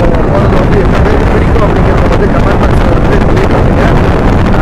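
Loud, steady wind buffeting on the microphone of a moving motorcycle, with the bike's running noise rumbling underneath.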